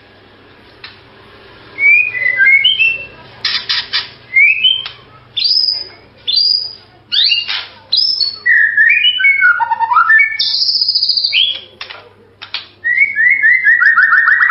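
White-rumped shama (murai batu) singing: a string of varied, loud whistled phrases with sliding notes, beginning about two seconds in. A high trill comes a little past the middle, and the song ends in a quick run of short falling notes.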